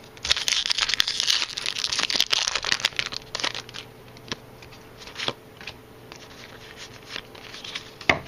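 Crinkly foil booster-pack wrapper being crumpled and torn open for about three seconds, followed by scattered light rustles and taps.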